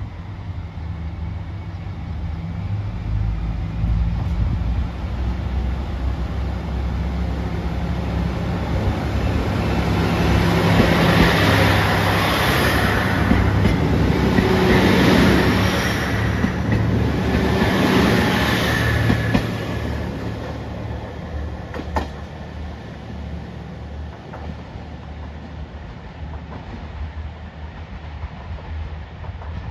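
A diesel train moving past: a low engine hum and the rushing of wheels on rail build to their loudest in the middle, surging three times as the cars go by, then fade away. A single sharp click comes about 22 seconds in.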